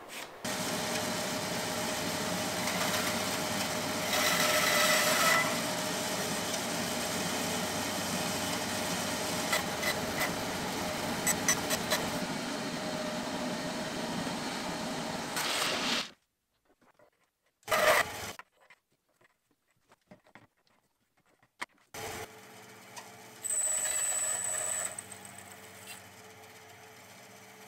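Benchtop bandsaw running and crosscutting a wooden dowel into short bench-dog lengths, with louder stretches where the blade goes through the wood. It stops for several seconds, broken only by a few light clicks, then runs again near the end for one more cut.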